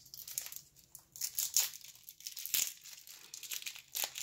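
Wax-paper wrapper of an old trading card pack crinkling and tearing as it is handled and pulled open, in irregular crackles with louder bursts between one and three seconds in.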